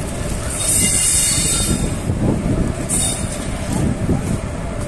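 Indian Railways passenger train's wheels rumbling over the rails, with a high-pitched wheel squeal about half a second in lasting around a second and a shorter squeal about three seconds in.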